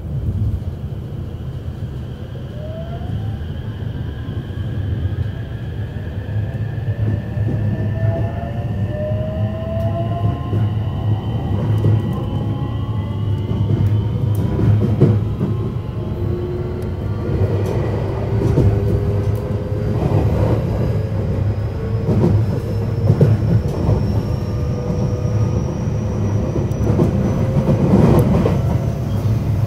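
JR West 321 series electric train running, its traction motors and inverter whining in several tones that rise slowly in pitch as the train gathers speed. Under the whine is a steady low rumble of wheels on rail, with scattered clicks.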